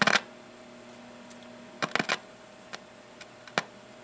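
Multimeter probe tips clicking and scraping against the pins of a 50C5 tube socket as they are worked to make contact: a burst of clicks at the start, another cluster about two seconds in, and single ticks near the end, over a faint steady hum.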